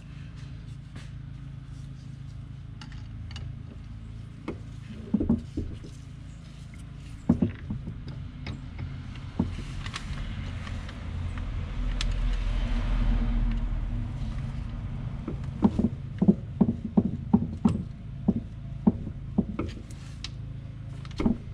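Sharp metal taps and clinks from tools and parts as a Tuff Torq K46 hydrostatic transmission is taken apart, a few single knocks and then a quick run of about eight taps near the end, over a steady low hum. About halfway through a rush of noise with a low rumble swells and fades.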